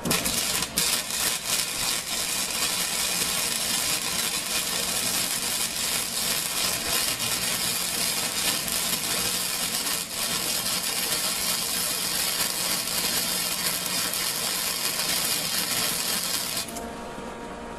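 Lincoln Weld-Pak 100 wire-feed welder arc crackling steadily as a bead is pushed along a bevelled butt joint in flat bar. It starts suddenly and cuts off near the end when the trigger is released.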